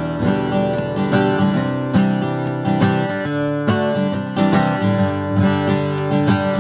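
Tokai Cat's Eyes TCE-30 acoustic guitar, solid spruce top with sapele back and sides, being played: plucked and strummed chords ringing with full, sustained overtones.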